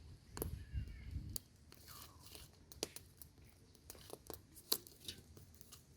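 Faint crunching and scattered sharp clicks of grated coconut being squeezed by hand with water to press out the second coconut milk.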